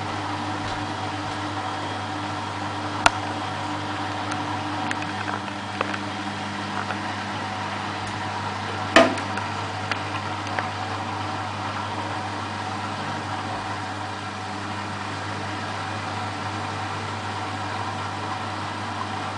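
Beko WMA642 washing machine spinning, a steady motor hum and whine, with a sharp knock about three seconds in and a louder one about nine seconds in.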